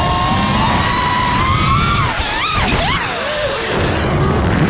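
Brushless motors of a 6S FPV freestyle quadcopter whining, heard from its onboard GoPro. The pitch holds high for about two seconds, then dives and climbs sharply several times as the throttle is chopped and punched. Wind rumbles on the camera's microphone underneath.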